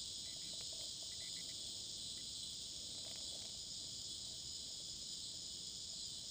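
Steady, high-pitched chorus of insects such as crickets, an unbroken shrill hum.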